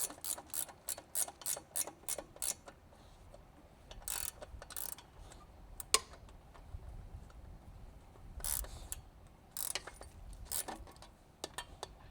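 Socket ratchet wrench clicking in a quick run of strokes, about four or five clicks a second, then stopping and giving a few scattered clicks and knocks.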